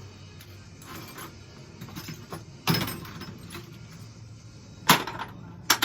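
Small metal hardware and parts clinking and clattering as they are handled and set down, with three sharper knocks: one about a third of the way in and two close together near the end.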